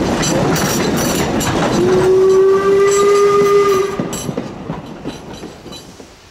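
Passenger cars of a small steam train rolling past, wheels clicking and rattling over the track. About two seconds in, the locomotive's steam whistle gives one steady blast of about two seconds. The train sound then fades as the last car goes by.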